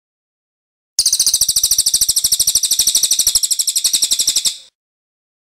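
A songbird's loud, high-pitched trill: a very fast, even run of repeated notes that starts abruptly about a second in and breaks off after about three and a half seconds.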